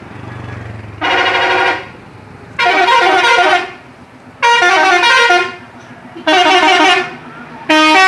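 Indonesian bus 'telolet' horn, a multi-tone musical horn, sounding in short melodic phrases that each step through several notes. There are four phrases of about a second each, and a fifth begins near the end.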